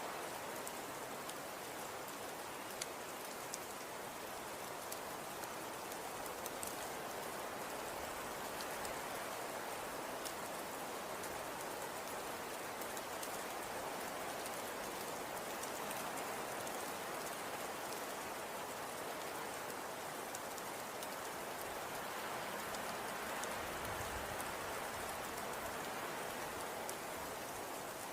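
Snowstorm ambience: steady wind noise with scattered faint ticks.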